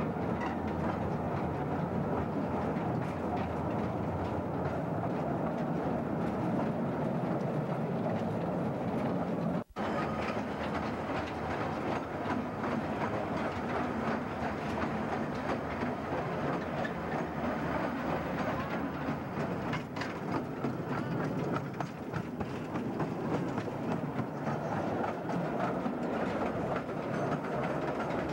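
Mine tramway cars running on rails through a tunnel: a steady rumble and clatter of the wheels. The sound cuts out briefly about ten seconds in.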